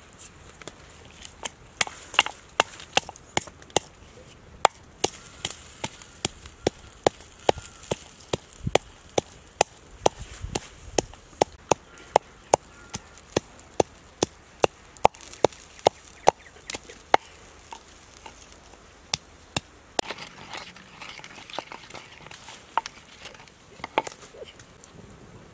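Wooden pestle pounding chilies and garlic in a wooden mortar: sharp knocks about twice a second, with a short pause about two-thirds of the way through and sparser strokes near the end.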